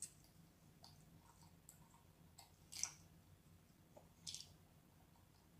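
Close-miked wet mouth sounds of eating raw octopus: faint sucking clicks and squelches, with a few short louder wet slurps, the loudest about three seconds in.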